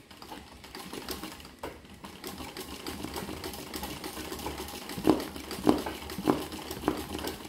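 Sewing machine stitching steadily at speed, its needle going up and down in a fast run of fine ticks, doing free-motion embroidery of a petal on a hooped terry towel. Four louder knocks come in the second half, about one every half second.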